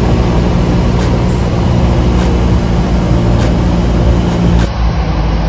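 Light single-engine propeller aircraft's piston engine and propeller droning steadily, heard from inside the cockpit during the landing approach.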